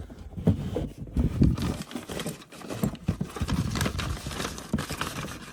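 Irregular knocks and clatter of household items being moved about and handled.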